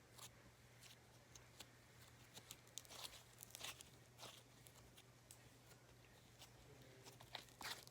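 Faint sticky crackles and clicks of slime being kneaded and pulled apart by hand, scattered and irregular over a low steady hum.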